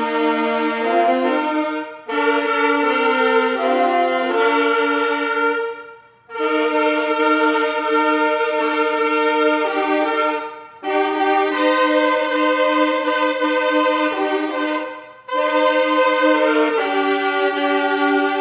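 Church anthem music with a brass-like tone: sustained chords held in phrases of about four seconds, the whole ensemble breaking off briefly between phrases.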